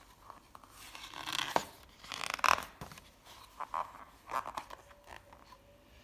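Paper rustling as a page of a small paperback book is turned and smoothed flat by hand, loudest about two and a half seconds in, with a few softer rustles after.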